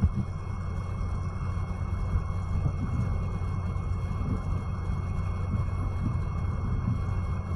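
Steady low rumble with a hum, unchanging and without speech: background noise.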